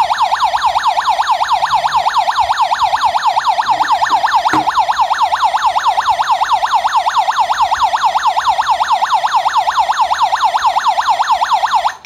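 Wireless Wi-Fi/GSM home security alarm hub's siren sounding, set off by the door/window magnetic sensor being opened (a Zone 01 alarm). A loud electronic warble that sweeps rapidly up and down in pitch many times a second.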